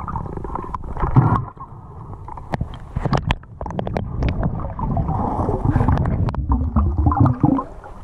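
Muffled underwater sound of a diver moving along a riverbed: low rumbling water movement and gurgling, with scattered sharp clicks and a louder surge about a second in.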